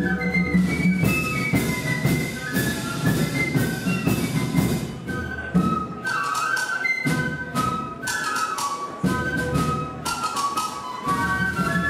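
Flute band playing a lively tune: massed flutes carrying a fast melody over lower flute parts, with sharp percussion strikes through it. The low parts drop out briefly twice.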